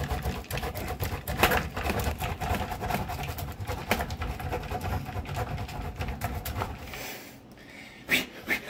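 Parmesan being grated on a six-sided stainless-steel box grater: fast, repeated rasping strokes of cheese against the metal. The grating stops about seven seconds in, and a couple of short knocks follow near the end.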